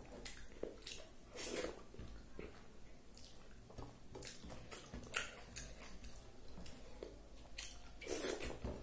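Faint wet squishing and soft clicks of fingers mixing rice with dal and vegetable curry on a plate, coming as irregular short strokes. Near the end the mouthful is eaten and chewed.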